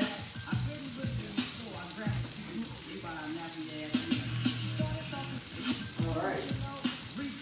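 Skillet of corn, spinach, tomatoes and peppers sizzling, with music playing in the background.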